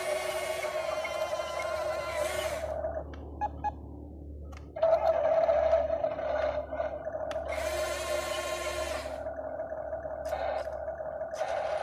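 Electric drive motors and plastic gearboxes of a radio-controlled toy tracked dump truck whining in spurts as it drives, with a steady hum underneath. The whine drops away about three seconds in and comes back about five seconds in.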